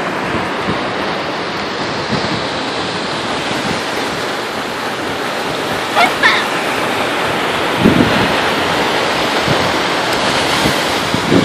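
Steady rush of large ocean waves breaking, mixed with wind noise on the microphone. There is a brief higher sound about six seconds in and a short low one about eight seconds in.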